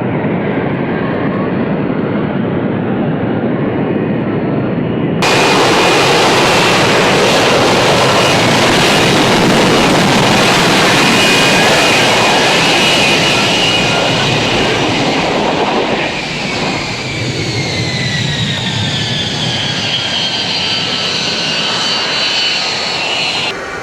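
F-35A Lightning II's single F135 jet engine, loud jet noise during a demonstration pass. In the second half a whine falls steadily in pitch as the jet goes by. The sound changes abruptly about five seconds in and again just before the end.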